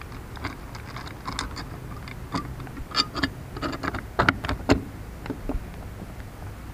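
Irregular clicks, clinks and knocks of metal mounting hardware being handled and fitted, with a few louder sharp knocks a little over four seconds in.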